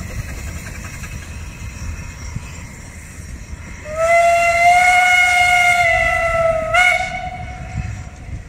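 Steam whistle of a narrow-gauge 0-4-2 tank locomotive sounding one long blast of about three seconds, starting about four seconds in and ending with a brief upward flick in pitch, the engine whistling its arrival on the approach to a siding. Before it, a low rumble of the train running and wind.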